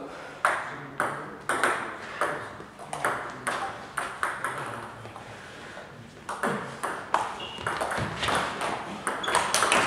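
Table tennis ball clicking: bounced at an even pace of about two bounces a second before the serve, then a quick rally of ball striking bats and table from about six seconds in.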